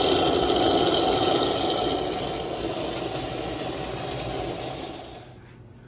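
Water rushing and splashing as the aquarium filter runs and returns water into the freshly filled tank. It eases slightly, then stops abruptly about five seconds in.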